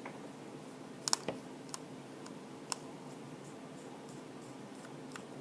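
A few light clicks and taps of a small screwdriver and tiny parts against the iPhone 4's frame, the loudest a quick double click about a second in, over a faint steady hum.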